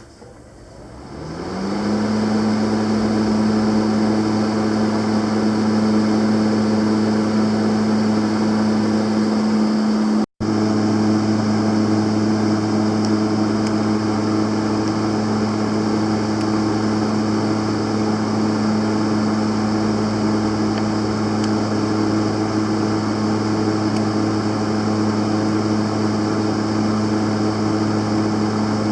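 A 2002 Panasonic full-digital semi-automatic welder switched on with a click, its cooling fan spinning up to speed in about a second and a half, then running with a steady hum. The sound breaks off for an instant about ten seconds in.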